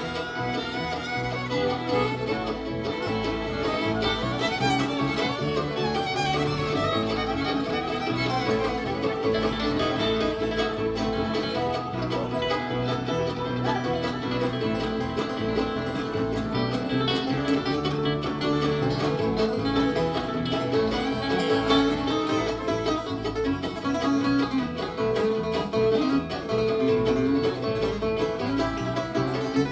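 Live bluegrass band playing an instrumental break: fiddle over guitar, mandolin and bass.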